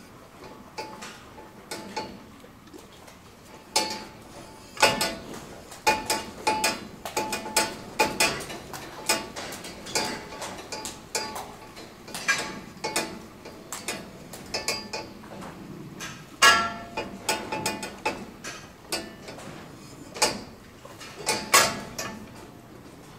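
A rat chewing on hard food: irregular sharp crunching clicks, often in quick clusters, some with a short ringing edge.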